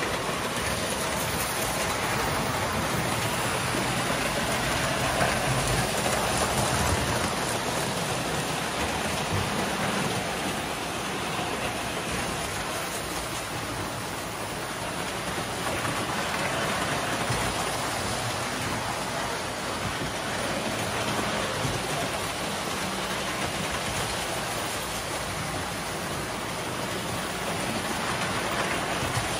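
Several toy electric trains running at once on metal track, a steady rolling clatter that swells and fades a little as they pass.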